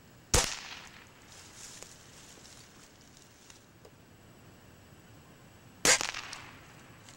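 Two shots from a Remington Vantage 1200 .177 break-barrel air rifle, about five and a half seconds apart. Each is a sharp crack that dies away over about a second.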